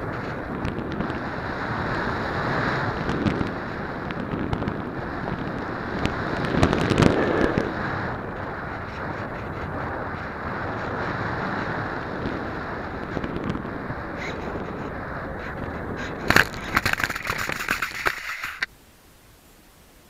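Steady rush of air over the onboard camera microphone of a Multiplex Easy Star electric RC plane in low flight, swelling about six to eight seconds in. About sixteen seconds in comes a sharp knock, then a crackling scrape for about two seconds as the plane touches down in the sand and slides to a stop, after which only a faint hiss remains.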